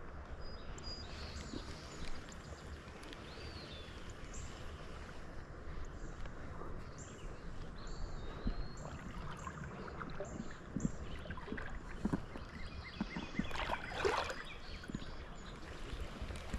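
River water sloshing and swishing around an angler's waders as he stands and moves in the current, with a louder splash about 14 seconds in. Birds chirp repeatedly in the background.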